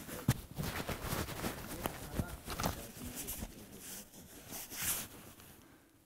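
Quiet handling noises: scattered small knocks and rustles as a shooter settles behind a prone precision rifle, with a few brief faint murmurs, dying down towards the end.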